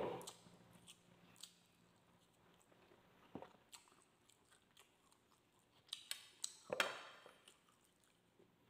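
A person eating grilled street-food barbecue: faint chewing and scattered small mouth clicks, with a short, louder chewing noise about seven seconds in.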